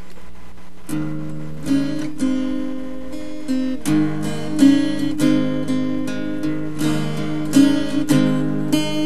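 Acoustic guitar strummed in chords, starting about a second in, as the introduction to a sung song.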